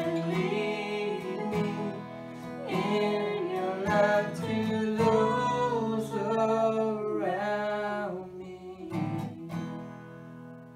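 Steel-string acoustic guitar strummed under a woman's voice singing a slow worship song, holding long wavering notes. A last chord is strummed about nine seconds in and the music dies away.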